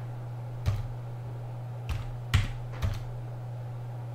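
Computer keyboard being typed on: four separate keystrokes over a couple of seconds, the loudest a little past two seconds in, over a steady low hum.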